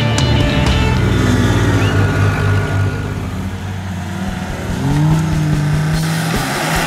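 Off-road 4x4 trial vehicle engine running, revving up about five seconds in and holding the higher pitch for about a second.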